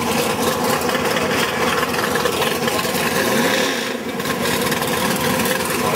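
Shelby Mustang's V8 running loudly with a harsh, raspy note in the wet burnout box, its revs dipping and rising once a little past the middle.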